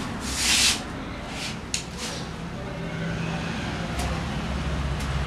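Water spray bottle spritzing wet hair: one hiss about half a second long, then a few shorter hisses and a sharp click between one and a half and two seconds in.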